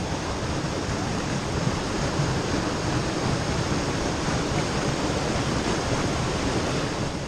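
Small river waterfall rushing steadily as water spills over a low rocky ledge.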